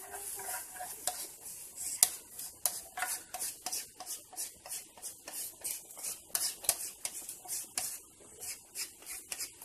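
Wood fire crackling under a steamer pot: irregular sharp pops and clicks, several a second, over a faint hiss.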